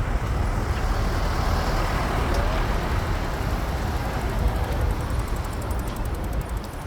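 City street traffic noise: a steady rumble and hiss of passing vehicles.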